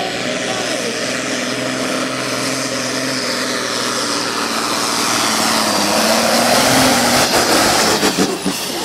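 Diesel pulling tractor at full power dragging a weight sled, its engine running hard and getting louder toward the end of the pull. Near the end it throttles back as the tractor comes to a stop.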